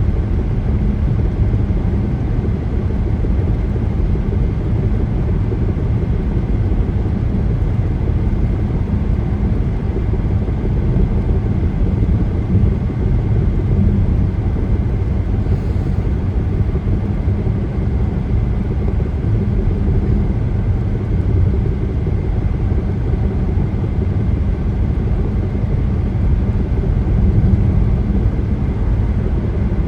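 Car travelling at highway speed: a steady low rumble of tyres on the road and the engine, unchanging throughout.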